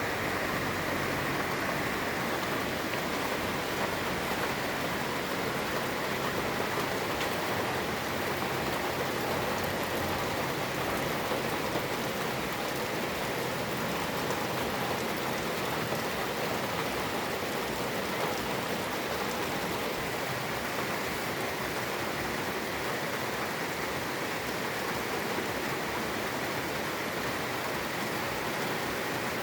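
Steady rain falling, an even hiss throughout. A low hum fades out in the first few seconds.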